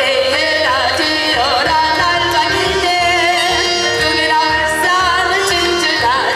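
A woman singing with a wide vibrato into a microphone, amplified over a PA, over accompaniment with a steady beat.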